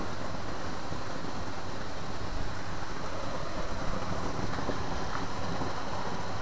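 Steady rushing background noise with an uneven low rumble and a few faint ticks.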